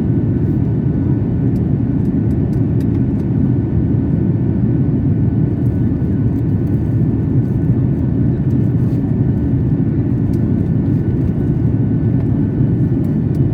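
Steady low rumble of an airliner's engines and airflow heard inside the passenger cabin on the approach to landing, even and unchanging throughout.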